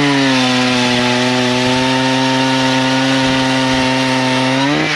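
Power ice auger boring a hole through lake ice, its motor running at a steady high pitch after revving up, then winding down near the end as the hole is finished.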